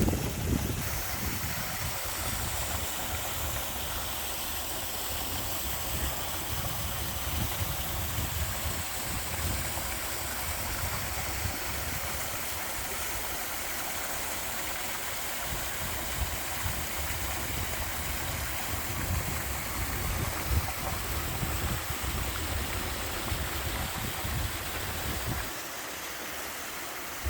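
Mountain stream rushing steadily over rocks, a waterfall-like wash of water, with a low rumble underneath that drops away near the end.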